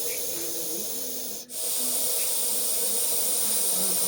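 Russell's viper giving its defensive warning hiss, a steady hiss that breaks off for a moment about one and a half seconds in and then resumes a little louder.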